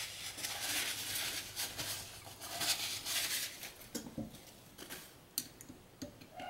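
Rag rustling as hands are wiped, followed by a few light clicks and taps as a small hex key is handled and fitted into a set screw on the ball screw's bearing block.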